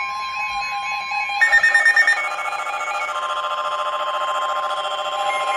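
Steady emergency alert tone from a weather radio, with electronic alarm beeping over it. About a second and a half in, a louder, rapidly pulsing electronic alarm starts and keeps going.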